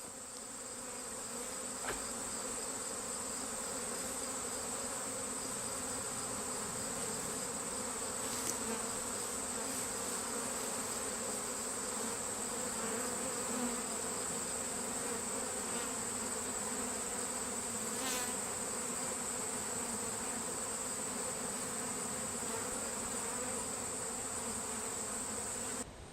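A honeybee swarm buzzing: a dense, steady hum of many wings, with a steady high-pitched whine above it and a few faint clicks. It cuts off suddenly just before the end.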